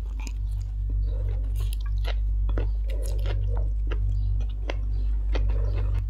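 Close-miked chewing of a mouthful of stir-fried instant noodles: irregular wet mouth clicks, with a steady low electrical hum underneath.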